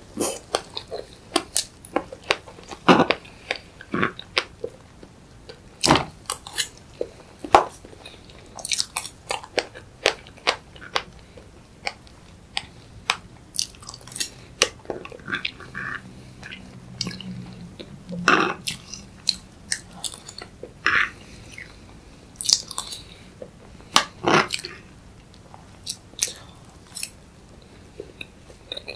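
A person eating strawberry fresh-cream cake: close chewing and biting, with an irregular run of short mouth clicks and smacks.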